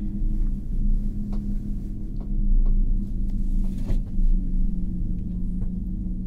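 Steady low hum and rumble inside a moving cable car gondola cabin, with a few faint clicks.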